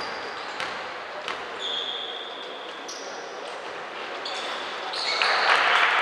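Basketball bouncing on a hardwood court at the free-throw line, with short high squeaks and crowd chatter in an echoing sports hall. About five seconds in, the crowd noise swells and gets louder.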